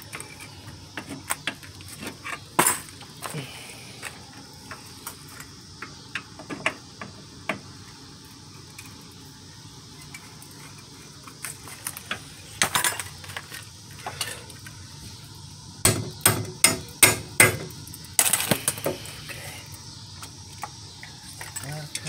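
Scattered metallic clinks and knocks of hand tools, bolts and nuts being picked up, set down and fitted, with quick clusters of clinking in the second half.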